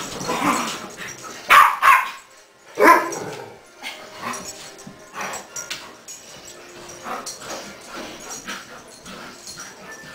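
Dogs barking and yipping as a greyhound and a West Highland white terrier play chase: three loud sharp barks in the first three seconds, then softer, scattered yips.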